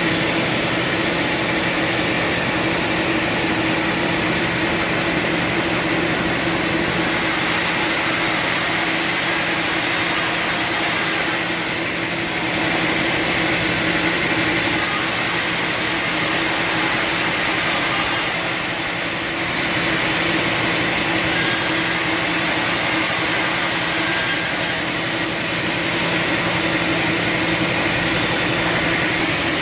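Band sawmill running and sawing through a log: a steady machine hum under the hiss of the cut, with a thin high whine that comes and goes several times.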